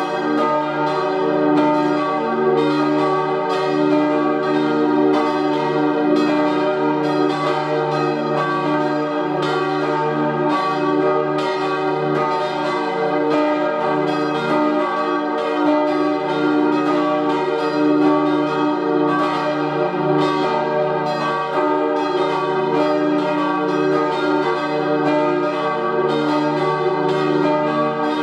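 Church bells of a four-bell bronze peal cast by Rüetschi in 1888, tuned E-flat, G, B-flat and upper E-flat, swinging and ringing together. The strokes overlap several times a second over a continuous deep hum.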